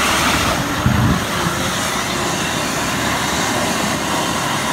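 Nissan Patrol 4x4's engine running hard under load as it churns through deep mud, with a thump about a second in.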